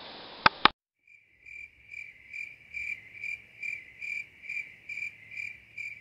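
Two sharp clicks about half a second in, then, after a brief silence, an insect chirping in an even rhythm, a little over two chirps a second.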